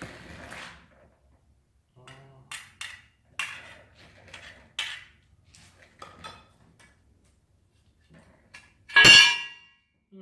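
Welding rod held in vice-grip pliers, powered by car batteries through jumper cables, clinking and tapping against steel angle iron several times. About nine seconds in comes one loud crackling arc burst lasting under a second, which is taken for the arc burning the pliers' jaws.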